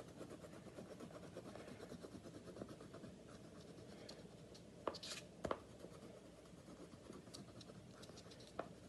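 An orange crayon rubbed quickly back and forth on paper, colouring in a shape: a faint, steady scratching, with two light knocks about halfway through.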